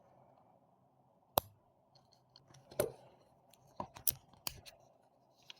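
Small tool clicking and scraping against a MoonSwatch case as the bezel is prised off: one sharp click about a second and a half in, then a scatter of smaller clicks and scrapes.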